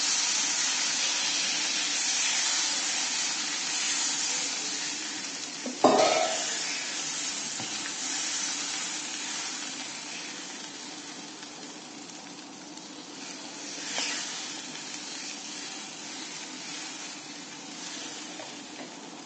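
Water poured into a hot frying pan of oil-fried, spiced potatoes sizzles loudly, and the sizzle slowly dies down while a wooden spatula stirs. A sharp knock comes about six seconds in.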